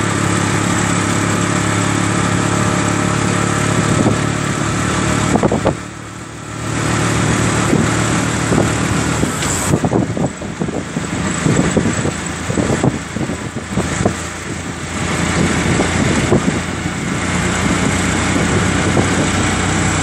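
Motor vehicle travelling across a bridge, heard from aboard: a steady engine hum under road and wind noise, with a brief dip about six seconds in and rattling clatter through the middle.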